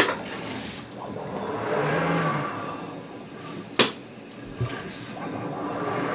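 Denso SCARA robot arm's servo motors whirring in swells that rise and fall as the arm swings between positions, with two sharp clacks, one at the start and one just under four seconds in, as the gripper handles wooden blocks.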